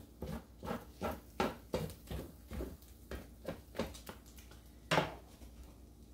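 A utensil stirring a ground-meat, corn and rice mixture in a skillet: a run of scrapes and light knocks against the pan, about two to three a second, with a louder knock about five seconds in, then it stops.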